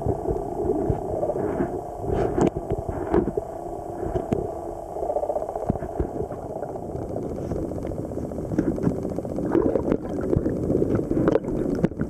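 Muffled underwater rumbling and gurgling heard through a submerged camera, with scattered clicks and scrapes as a gloved hand stirs sand and small shells on the riverbed.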